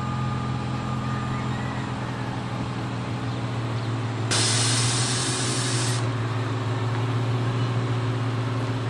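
An engine idling steadily, with a hiss of spray that starts and stops sharply and lasts under two seconds, about halfway through.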